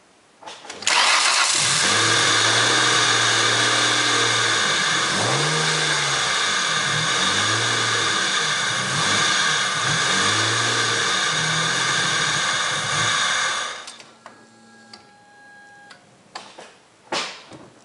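Ford Contour SVT's 2.5-litre V6 starting about a second in, idling and being revved several times, with a loud, steady, high-pitched grinding over the engine note that points to a failing idler pulley. The engine stops just before the last few seconds, leaving a few short steady tones and a click.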